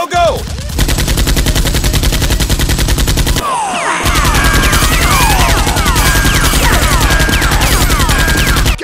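Rapid, even machine-gun fire from a sound effect standing in for the toy blasters, running on without a break. From about three and a half seconds in, short falling whistles are layered over the shots.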